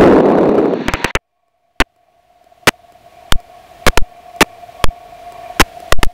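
Open-cockpit Tiger Moth biplane landing: a loud rush of wind and engine noise that cuts off about a second in, then a faint steady hum broken by about a dozen sharp clicks at irregular intervals.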